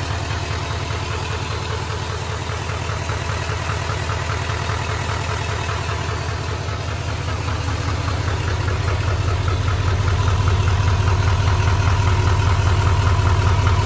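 L5P Duramax 6.6-litre turbo-diesel V8 idling steadily with the hood open, getting louder in the second half, during a run after a coolant refill to check for leaks.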